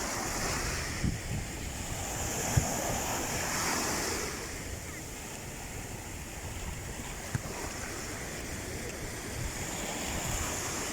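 Sea waves breaking and washing, with a surge swelling about two to four seconds in, and wind on the microphone. A few brief low thumps punctuate it.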